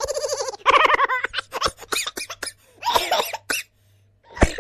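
A quick string of comic vocal sound effects. A wobbling, trilling voice-like sound comes twice, then a run of quick sharp clicks and short vocal bursts, and a loud sharp click near the end.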